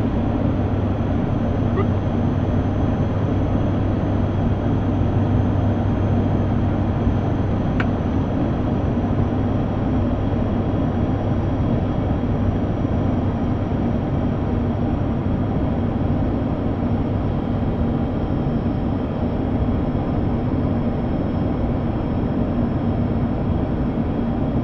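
Flight-deck noise of an ATR 72-600 on final approach, gear down and flaps 30: the steady drone of its Pratt & Whitney PW127M turboprops and propellers over airflow rush. There is a constant low hum and faint high-pitched whines.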